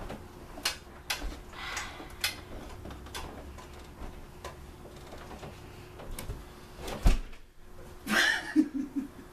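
Scattered knocks, taps and footsteps of people moving about a room, with one heavy thump about seven seconds in and a short rustling burst just after it.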